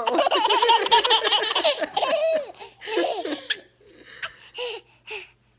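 A baby laughing hard at his mother's hiccups: a long run of high-pitched belly laughs for the first couple of seconds, breaking into a few shorter giggles toward the end.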